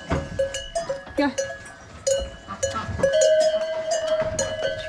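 Metal livestock bells clanking repeatedly as the animals move about, with a steadier ringing from about three seconds in.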